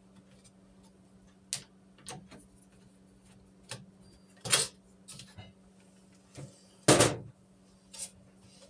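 Irregular clicks and knocks from dishwasher parts being handled during disassembly, with two louder knocks about halfway through and near the end, over a faint steady low hum.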